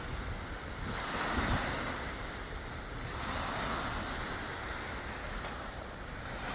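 Sea waves washing onto the shore, swelling and fading about every two to three seconds, with wind rumbling on the microphone.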